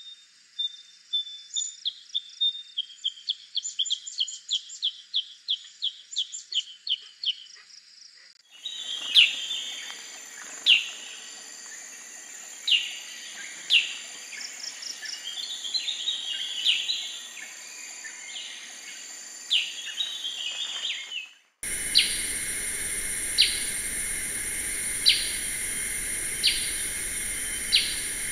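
Black-headed bulbul calling, from several field recordings spliced together. First comes a fast run of high, clipped notes. Then come spaced sharp call notes and short phrases, and near the end single sharp notes about every second and a half over a steady background hiss.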